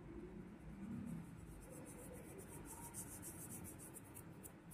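Faint, light scratching and rubbing from dry flour and dough being handled on a rolling board.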